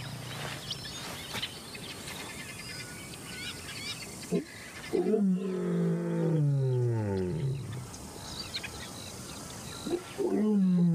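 Male lion soft-calling: low moaning calls that fall in pitch, one lasting about two seconds about five seconds in and another starting near the end. These are quiet contact calls to the rest of his pride, not a dominant male's territorial roar.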